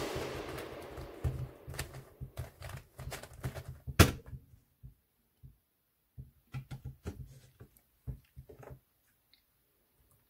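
Plastic clicks and rattles of a Clover cube twisty puzzle being turned fast, ending in one sharp knock about four seconds in as the solve finishes. Scattered softer plastic clicks and knocks follow as the plastic Speed Stacks timer is handled. Background music fades out over the first two seconds.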